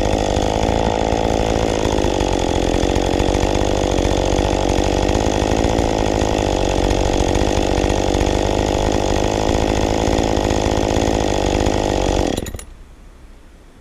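Ported Husqvarna 550 XP hybrid two-stroke chainsaw running hard, cutting cookies from a log, then shut off about twelve seconds in, stopping abruptly.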